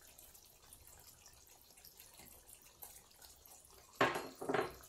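Saffron water poured from a small bowl into a pan of mutton qorma, a faint liquid sound over the simmering gravy. Two short, louder clatters come near the end.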